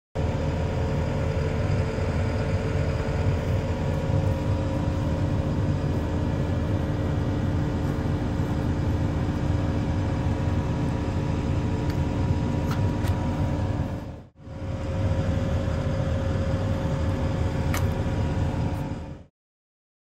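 Diesel engine of a Cat compact track or skid steer loader running steadily at idle, a low drone with a steady hum over it. It drops out for a moment about two-thirds of the way through, then resumes, and a few faint clicks come over it.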